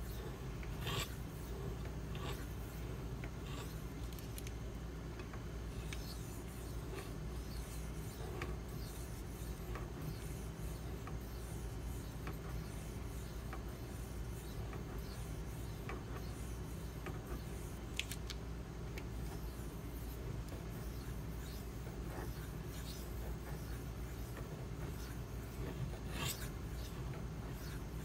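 A 52100 steel knife blade stroked back and forth on a Shapton whetstone wet with nagura slurry: a faint, rasping rub with a few light clicks of the blade on the stone.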